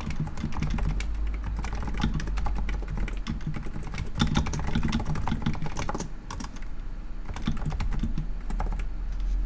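Rapid, steady typing on a Cooler Master Novatouch TKL Topre keyboard whose sliders are fitted with Hypersphere silencing rings. The keys land with a soft, muted thud on their return rather than a loud click.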